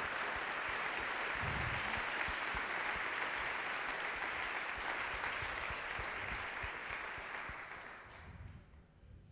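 Audience applause: a steady clatter of many people clapping, dying away near the end.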